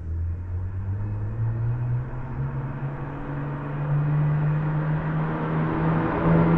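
BMW 335i N54 twin-turbo straight-six running through a one-off exhaust with a valved silencer, its note rising steadily in pitch as the car accelerates, then holding.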